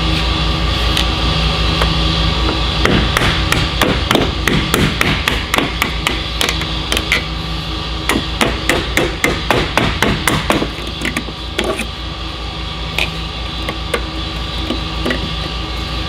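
Hammer striking metal in a run of quick, irregular blows starting about three seconds in and thinning out after about eleven seconds, knocking out the rivets of a truck cab's luggage door hinge. A steady hum runs underneath.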